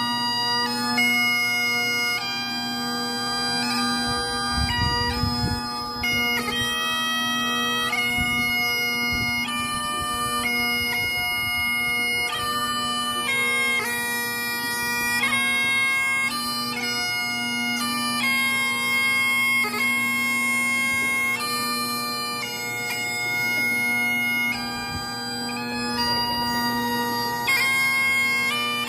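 Great Highland bagpipe played solo: the drones sound one steady low note beneath a slow melody of held chanter notes that change every half second to a second.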